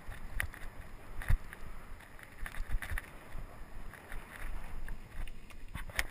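Mountain bike riding over a bumpy grass and dirt trail: steady rumble of tyres and wind on the microphone, broken by scattered sharp knocks and rattles from the bike as it hits bumps.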